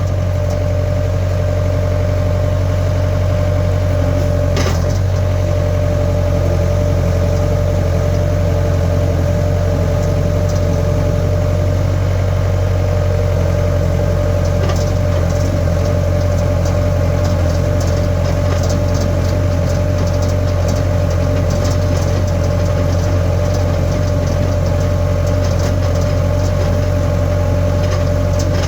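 Skid steer engine running steadily at a constant speed, with a couple of brief knocks.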